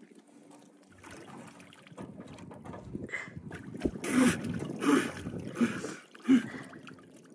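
Icy water sloshing around a man as he ducks fully under in a hole cut in sea ice and comes back up, then four loud bursts of splashing and sharp breath, less than a second apart, as he surfaces.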